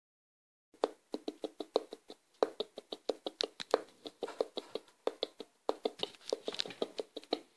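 A rapid, uneven run of sharp, hollow percussive taps, several a second, starting about a second in.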